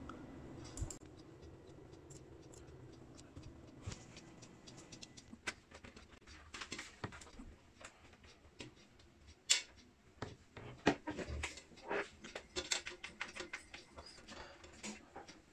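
Faint scattered clicks, knocks and light rubbing of hands handling a desktop PC case while its glass side panel is taken off. The knocks come sparsely at first and more often near the end.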